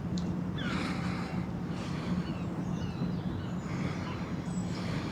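Outdoor background of a steady low hum, with short falling bird chirps now and then.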